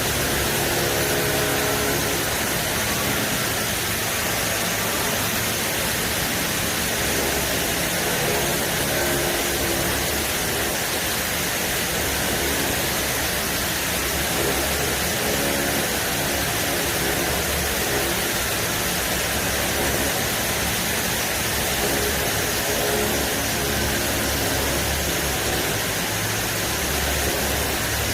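Doosan Ace-DB130 CNC horizontal boring mill running: a steady machine hum under a strong, even hiss, with faint tones that come and go.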